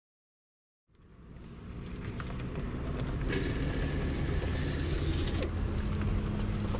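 Motor vehicle engine running steadily, fading in about a second in after silence, with a brighter hiss for about two seconds in the middle.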